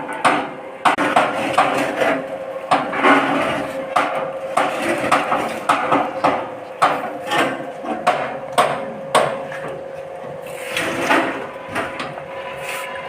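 Corn emping flattening machine running with a steady hum, under many irregular knocks and clacks.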